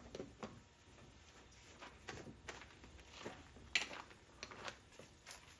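Faint scattered clicks and knocks of handling, with one sharper knock near the end.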